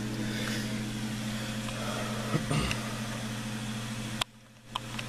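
Steady machine hum made of several even tones, with a faint short knock about two and a half seconds in; the hum cuts off suddenly about four seconds in.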